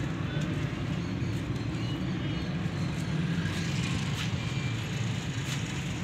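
Steady low rumble of background noise, with a few faint short high chirps near the middle.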